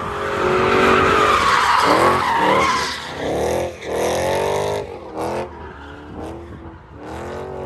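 A car doing donuts: tyres screeching in a long skid, then the engine revving up and falling back several times, easing off after about five seconds.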